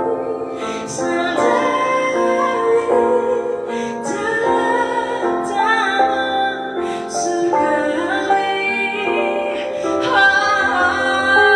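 A woman singing in Indonesian over instrumental accompaniment, holding long notes with a slight waver.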